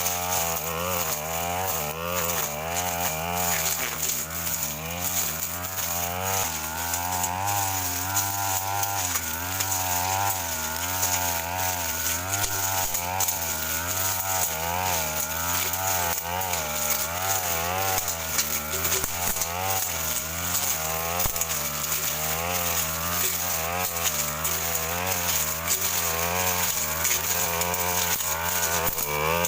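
Stihl FR 3001 brush cutter's two-stroke engine running hard without a break, its pitch wavering up and down as the blade meets and clears brush.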